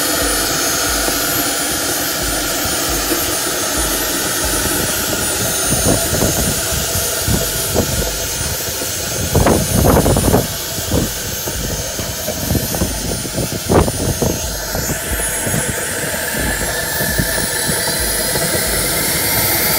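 Small gas turbine, an aircraft APU fitted in an electric car, running with a steady high jet whine. A few thumps come near the middle, and a whine rises in pitch about fifteen seconds in.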